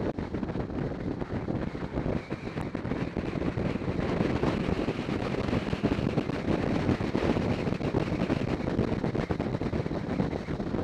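Wind rushing over the microphone of a camera mounted on a moving motorcycle, with the motorcycle running underneath at road speed. There is a slight rise in pitch between about two and five seconds in.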